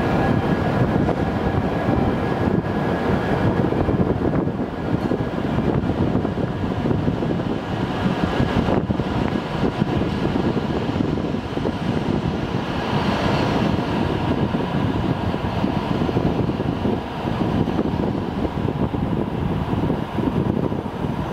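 Hokuriku Shinkansen train pulling out of the station and accelerating away along the platform, a steady rumble and rush of air as the cars run past.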